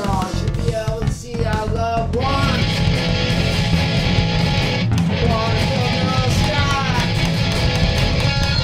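Loud rock music: a dense band of guitars and bass, with a wavering melody line bending over it.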